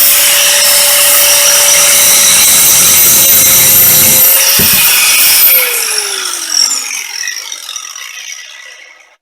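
DeWalt DWE4011 4 1/2-inch angle grinder running at a steady, high-pitched whine; about five and a half seconds in it is switched off and the whine falls in pitch as the disc spins down to a stop.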